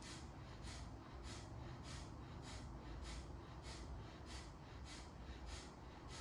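Kapalabhati breathing: rapid, forceful exhalations pumped through the nose, about three sharp puffs a second in an even rhythm.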